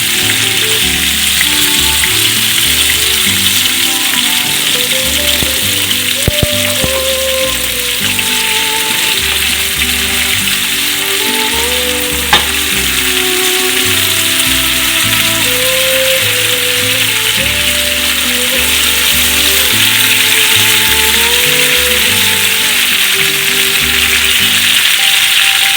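Sliced onions sizzling steadily as they fry in ghee and oil, browning, with a couple of sharp clicks.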